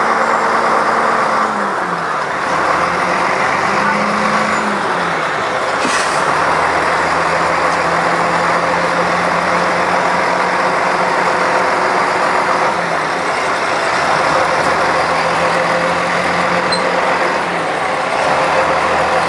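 Diesel railcar RBE5011 (ex-JR KiHa 52) running under way, heard from aboard: its DMF11HZ diesel engine runs over a steady rumble of travel. The engine note drops about a second and a half in, rises briefly around four seconds, then holds, with small shifts later as the power changes.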